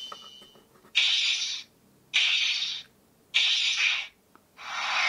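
CSM Altering transformation belt toy playing its Trinity Form finishing-move sound effects through its speaker: three short hissing bursts about a second apart, then a longer one building up near the end.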